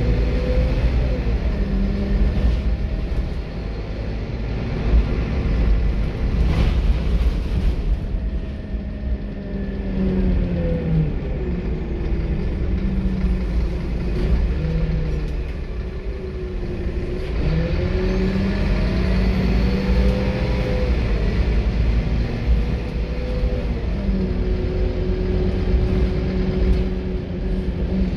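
Scania K230UB bus's five-cylinder diesel engine heard from inside the passenger saloon as the bus is driven hard. Over a heavy low rumble, the engine note climbs and then drops sharply several times, and one sharp click comes about six and a half seconds in.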